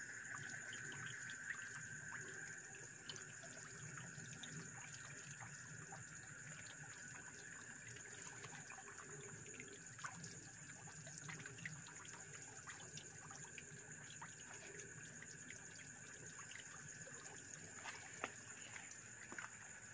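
Faint small splashes, slurps and tiny clicks of month-old catfish fingerlings feeding on pellets at the water surface, over a steady faint high-pitched hum.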